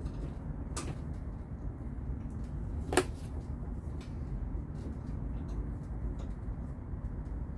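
A plastic quick-splice wire connector snapping shut over two black wires, a single sharp click about three seconds in, with a fainter click shortly before, over a steady low background rumble.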